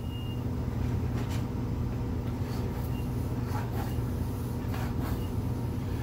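Hand floor pump worked in strokes, each stroke a short hiss of air, inflating a new dirt-bike tire's tube to seat the tire bead evenly on the rim. A steady low hum runs underneath.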